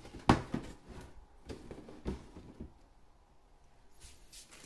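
Handling noise from the helmet's box being moved aside on a desk: a sharp knock about a third of a second in, then a few lighter knocks and rustles, fading to quiet.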